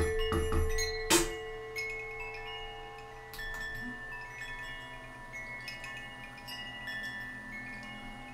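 Solo percussion playing: a few sharp struck hits in the first second or so, then many overlapping metallic chime tones, lightly struck and left to ring, with a lower held tone coming in about four seconds in.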